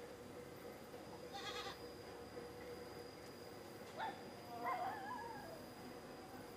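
Two faint animal calls: a short one about a second and a half in, and a longer call that wavers in pitch around five seconds in, with a click just before it.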